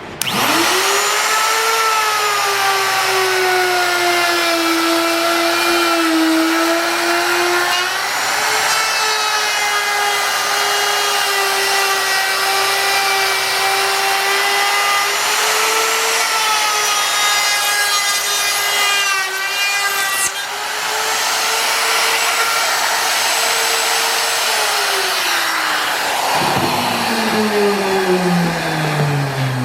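Electric power tool cutting wood, its motor running steadily with the pitch dipping slightly now and then under load, then winding down near the end.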